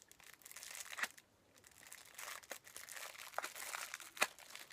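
Packaging crinkling and crackling as wax melts are worked out of their wrapping, with sharp clicks about a second in and again near the end.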